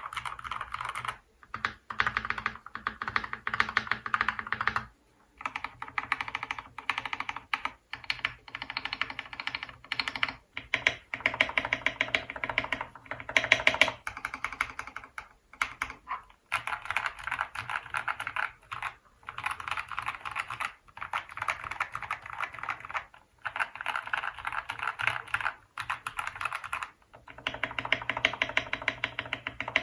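Fast typing on modded mechanical keyboards, runs of rapid keystrokes a few seconds long with short pauses between. For the first five seconds or so it is a Keydous NJ68 with lubed TTC Ace switches on a brass plate; after a brief gap it is a Royal Kludge RK61 with lubed and filmed Gateron Brown switches.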